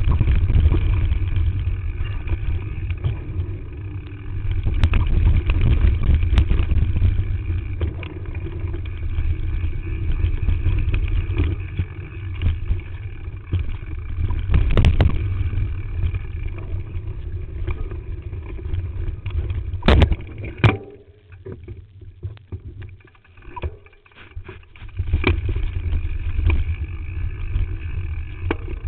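Mountain bike rattling and rumbling down a rough dirt singletrack, picked up by a camera mounted on the bike frame, with sharp knocks from bumps and rocks; the biggest knocks come about 20 seconds in, followed by a few seconds of quieter riding before the rumble picks up again.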